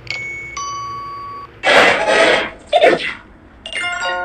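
Electronically altered logo-jingle sound effects. Held electronic tones come first, then a loud noisy burst about two seconds in and a short second burst, then a cluster of stepped tones near the end.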